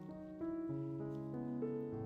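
Background piano music, with a new note about three times a second.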